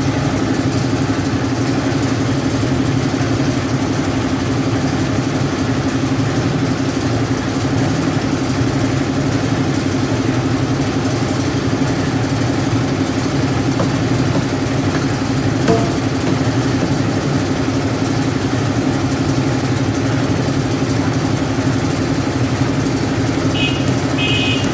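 Concrete mixer engine running steadily, a constant low drone, with one brief knock about two-thirds of the way through and a short high-pitched squeak or call just before the end.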